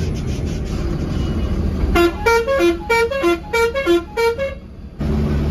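A musical vehicle horn plays a quick repeating tune of short notes, a three-note rising figure about four times over at roughly four notes a second, starting about two seconds in. Before it, the low, steady engine and road noise of a bus in city traffic.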